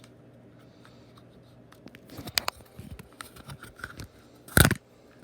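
Leatherman Raptor folding shears being handled: small clicks and scrapes of the metal parts, then one loud, sharp snap near the end.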